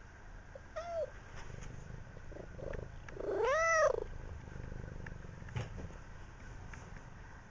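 Domestic cat meowing: a short call about a second in, then a longer, louder meow that rises and falls in pitch.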